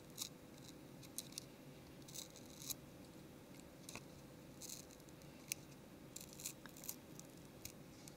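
Faint, irregular clicks and crackles of tweezers peeling the adhesive-backed volume and power button flex cable away from the Nexus 7 tablet's frame, over a faint steady hum.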